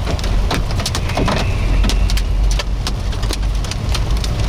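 Hailstones, some golf-ball sized, striking the car's body and windshield in irregular sharp knocks over the steady low rumble of the car.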